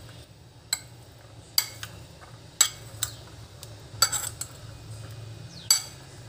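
Metal spoon stirring boiled chickpeas and chopped vegetables in a bowl, clinking against the bowl's side about six times at uneven intervals, with the soft shuffle of the mix in between.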